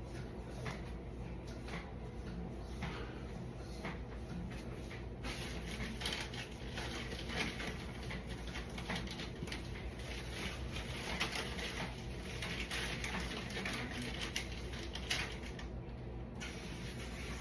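Soft, irregular clicks, taps and rustles of small objects being handled and moved about, over a steady low hum.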